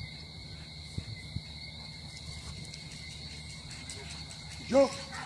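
Steady high buzzing of insects, with one short, loud dog bark near the end.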